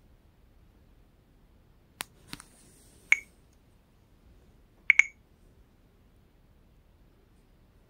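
Short sharp clicks from a Samsung Galaxy S Mesmerize smartphone being handled and its touchscreen tapped. There are two fainter clicks about two seconds in, a louder one a second later, and a quick double click about five seconds in.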